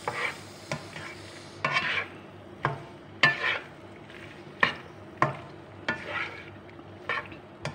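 Black spatula stirring and scraping macaroni around a frying pan, with sharp clacks against the pan about once a second over a faint sizzle of frying.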